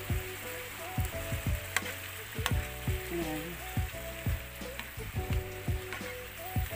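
Strips of squash, carrot and string beans sizzling in a frying pan as a spatula stirs them, with a few sharp clicks of the spatula against the pan. Background music with a steady beat plays under it.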